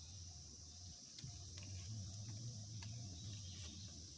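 A steady, faint, high-pitched chorus of insects chirring, with a few faint clicks from strips of young coconut leaf being handled.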